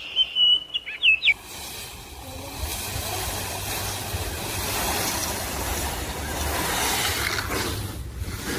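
A bird gives a short whistled call of gliding notes, then stops. A low rushing rumble follows, swelling and easing slowly.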